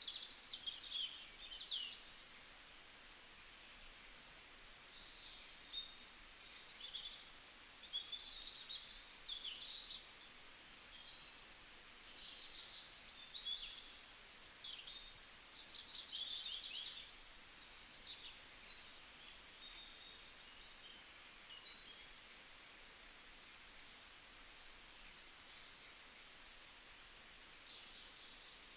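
Songbirds singing: many quick high chirps, twitters and rapid trills overlapping, over a faint steady hiss.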